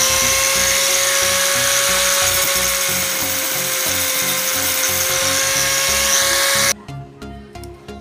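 Electric angle grinder running and cutting into the steel of a refrigerator compressor: a loud steady whine with a hiss of grinding above it, its pitch sagging slightly mid-way under load, then cut off abruptly near the end.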